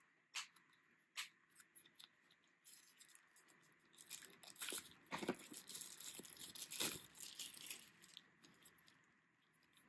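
A couple of sharp plastic clicks as a clear plastic battery case is opened. These are followed by several seconds of crinkling and tearing of a thin plastic wrapper being pulled off a camera battery, loudest in the middle.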